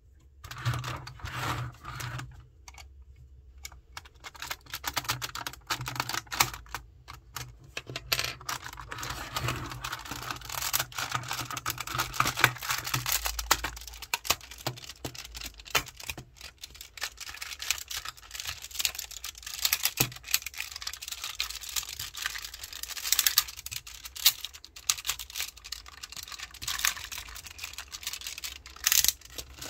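Hard plastic parts of a Tobot transforming toy car clicking, snapping and rattling as they are folded by hand from car into robot: a busy, irregular run of small clicks and knocks.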